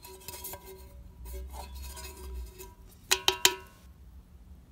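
Quiet handling of a rusty tin can, then a quick run of three or four metallic clinks with a short ring about three seconds in.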